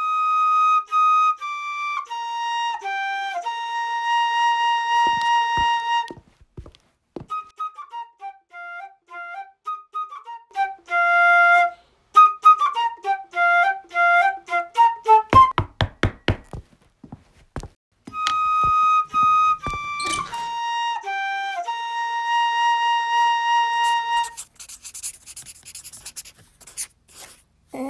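Solo flute playing a slow melody of held notes and quicker runs, its opening phrase returning about two-thirds of the way through. A little past halfway a quick run of sharp clicks cuts in before a short pause, and near the end a soft hiss takes over.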